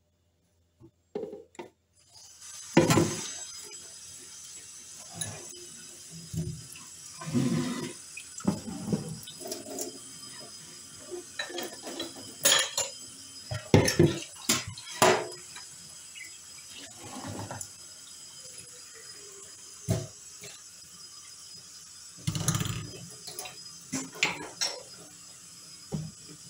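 Glass smoothie jug and drinking glass knocking and clinking against a kitchen countertop as they are handled: a dozen or so short, sharp knocks at irregular intervals over a faint steady hiss, starting about two seconds in after a near-silent opening.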